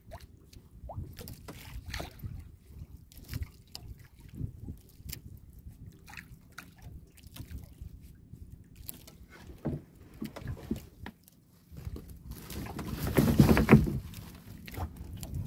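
Water lapping and sloshing against the hull of a small wooden outrigger canoe, with scattered light knocks and clicks. About three-quarters of the way through, a louder rush of splashing lasts a second or so.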